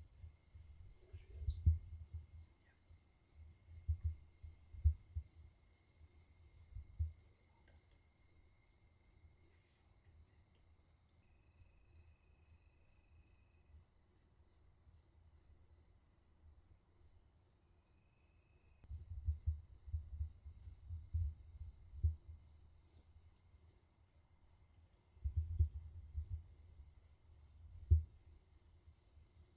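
An insect chirping steadily, a high pulsing about twice a second, over a faint steady hum. Clusters of dull low thumps come in the first few seconds, about two-thirds of the way through, and near the end; these are the loudest sounds.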